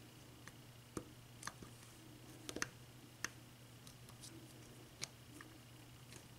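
Faint, scattered clicks of a lock pick setting the pins of an American Lock Series 200 five-pin padlock under tension, with a steady low hum beneath.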